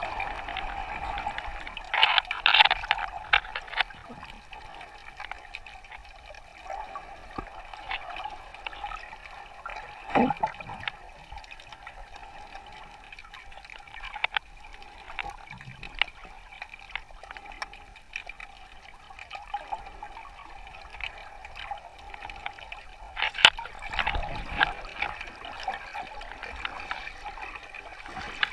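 Water sloshing and bubbling around a snorkeler's camera, with many scattered small clicks and a few louder splashy bursts.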